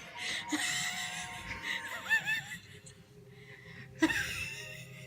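A girl's laughter coming out as high, squeaky, breathless wheezes and gasps. The wheezing fades out for a moment and bursts back in about four seconds in.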